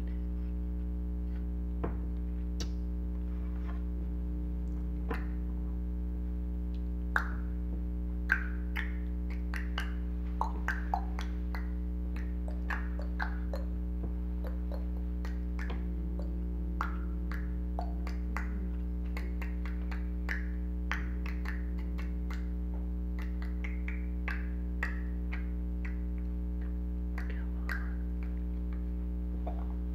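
Steady low hum, with faint irregular clicks and short crackles scattered over it. Two louder clicks come about seven and eight seconds in.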